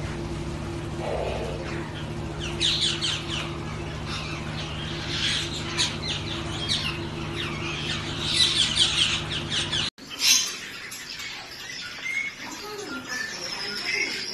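Captive birds in an aviary chirping: runs of quick, high, falling notes over a steady low hum. About ten seconds in the sound cuts to sparser bird calls and squawks.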